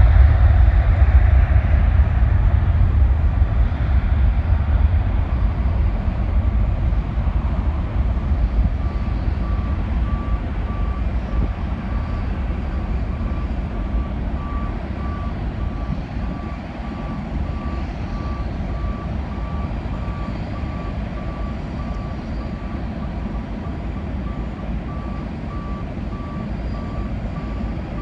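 Low jet-aircraft rumble that slowly fades away, with a vehicle's reversing alarm beeping about twice a second from about nine seconds in.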